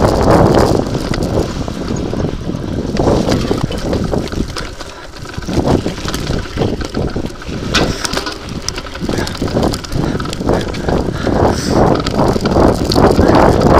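Wind buffeting the microphone over the crunch and rattle of tyres rolling along a wet gravel track, with many short knocks. It dips briefly about five seconds in and grows louder toward the end.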